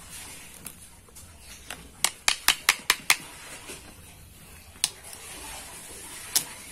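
Screwdriver clicking against the rear of an electric angle grinder's motor housing as the housing is opened: a quick run of about seven sharp clicks about two seconds in, then two single clicks later.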